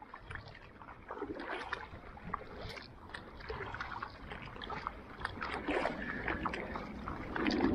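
Kayak paddle strokes at a fast pace: blades dipping in and out of the water with repeated splashes and drips, growing louder toward the end.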